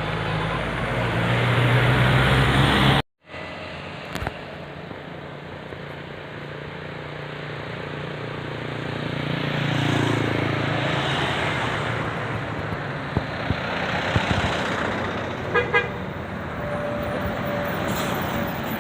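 Road traffic with buses passing, a heavy engine running close by at first. The sound cuts out for a moment about three seconds in. Near the end a bus's telolet horn gives a few short toots and then holds one steady note.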